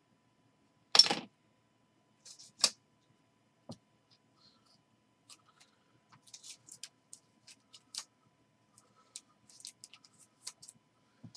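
Sparse light clicks and plastic rustles of a trading card being handled and worked into a soft plastic sleeve, with one louder crackle about a second in.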